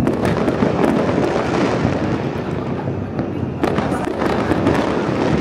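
Fireworks going off in a dense, continuous barrage of bangs and crackles from many bursts at once, with a few sharper cracks near the middle.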